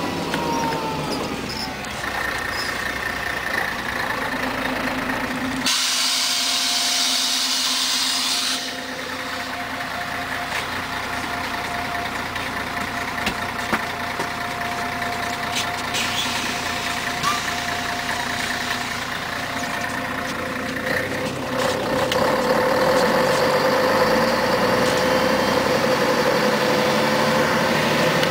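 Inside a 1994 Scania CN113CLL city bus: its diesel engine winds down as the bus slows, then a loud hiss of compressed air about six seconds in lasts some three seconds. The engine hums steadily at idle, then revs up and keeps climbing in the last quarter as the bus pulls away.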